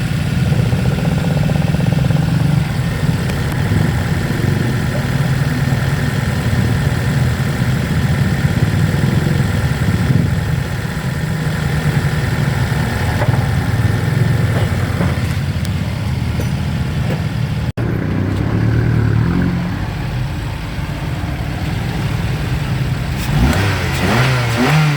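Toyota Avanza engine running at a steady idle, then revved briefly near the end.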